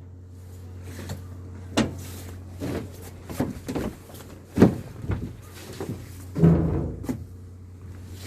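Steady low hum of a boat's engine, with irregular knocks and clatter, the loudest about two, four and a half and six and a half seconds in.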